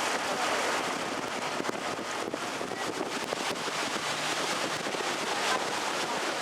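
Steady wind and water noise on board an open canal tour boat under way, with wind buffeting the microphone.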